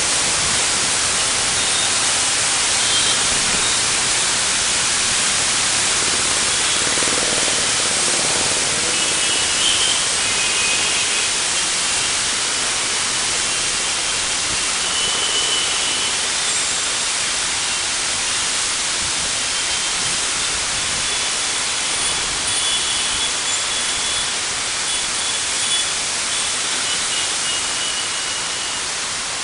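Heavy rain falling, a steady dense hiss with no break.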